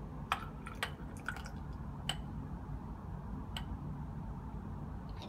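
A handful of sharp, briefly ringing glass clinks, spaced irregularly over the first few seconds, as a glass graduated cylinder is tipped against a glass beaker to pour in aqueous ammonia. A steady low hum runs underneath.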